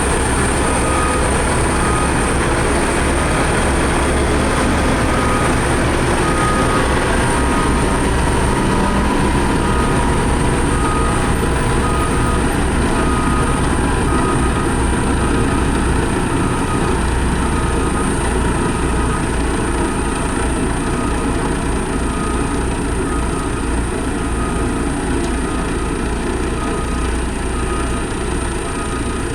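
Heavy road-building machine's diesel engine running steadily, with a reversing alarm beeping about once a second.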